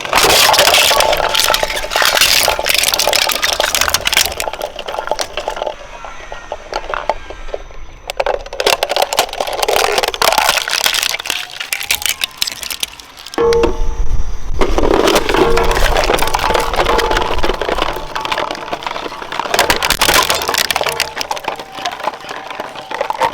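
Shredder crunching and cracking material between its cutters in dense runs of snapping clicks, easing off twice and starting again with a heavy low crunch a little past the middle.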